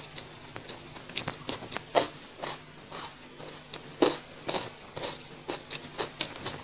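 A person chewing raw young jengkol beans close to the microphone: irregular crunches and clicks, with a louder crunch about two seconds in and another about four seconds in.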